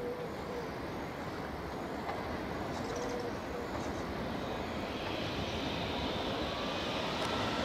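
E464 electric locomotive hauling double-deck Vivalto coaches approaches; its running noise grows steadily louder, and a faint whine comes in near the end.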